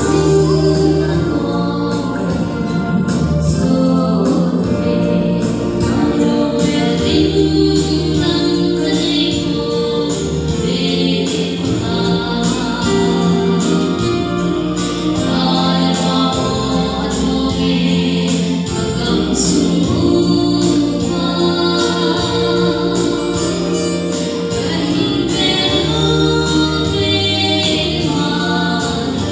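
A woman singing a gospel song into a microphone over an instrumental accompaniment with held bass notes that change every second or two.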